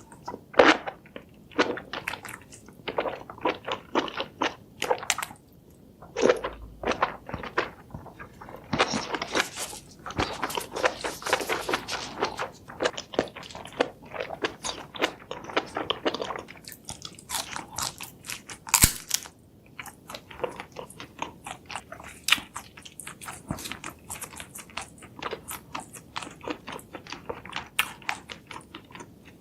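Close-miked eating: repeated crisp crunching bites and chewing of crunchy food, with a dense run of crackly crunching in the middle.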